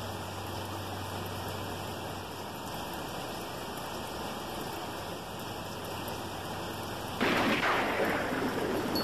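Steady rain, then about seven seconds in a sudden loud clap of thunder that rolls on.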